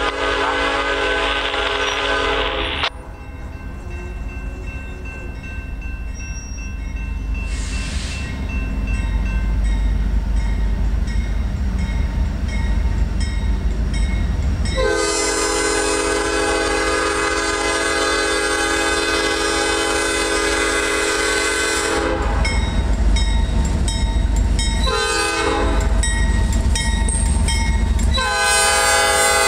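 Five-chime Nathan P5 air horn on a Norfolk Southern AC44C6M diesel locomotive sounding the long, long, short, long grade-crossing signal. A long blast ends about three seconds in, another long blast of some seven seconds starts about halfway, then comes a short toot, and a final long blast begins near the end. Under it the locomotives' engine rumble grows louder as they come close.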